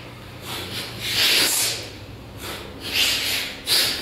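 Forceful hissing breaths blown out through the nose, about five in a row, each well under a second, as in a yoga breathing exercise.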